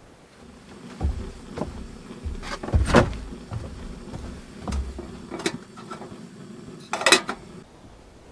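Footsteps and knocks on a wooden cabin's plank floor and door: a string of sharp thuds, loudest about three seconds in and again near the end, over a low steady hum that stops shortly before the end.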